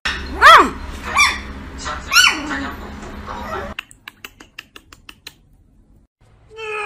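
Small poodle puppy yipping: three loud, high-pitched yips in the first couple of seconds, each rising and falling in pitch. A run of light clicks follows.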